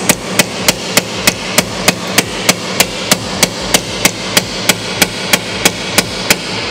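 Hammer blows on metal, knocking at a universal joint under a Mazda RX-8 that has seized solid with rust. The sharp, evenly paced strikes come about three a second.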